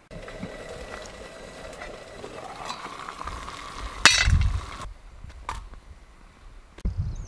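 Water heating in a metal canteen cup on a small camp stove: a steady hiss with a faint tone slowly rising as it nears the boil. About four seconds in comes a metal clink and a short louder burst of noise, then a couple of light metal clinks.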